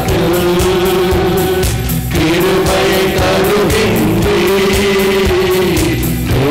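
Christian worship song sung by a group in long held notes, with hands clapping in a steady beat.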